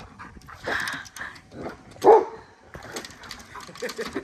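Pet dog barking in short calls, one loud bark about two seconds in.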